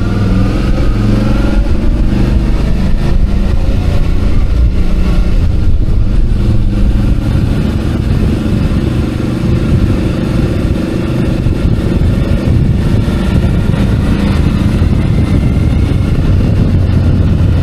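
Suzuki DL650 V-Strom's V-twin engine running on the move, its note drifting slightly up and down, over heavy wind rumble on the microphone.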